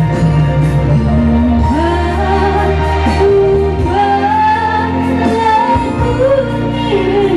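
A woman sings a slow, held melody into a handheld microphone over instrumental backing. Her voice comes in about two seconds in, after a short stretch of the accompaniment alone.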